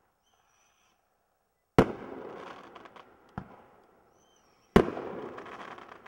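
Patriotic Dominance 10-shot firework cake firing. A shell climbs with a high whistle and bursts with a loud bang followed by a long crackling tail, about two seconds in. Then comes another launch thump, a second whistle and a second loud bang with a crackling tail near the end.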